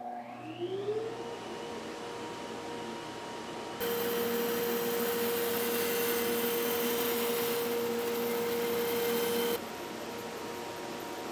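Grizzly bandsaw ripping walnut leg stock. A motor spins up with a rising whine over the first second and settles into a steady hum. From about 4 s to about 9.5 s the sound is louder and hissier while the blade cuts through the board, then it drops back to the idle hum.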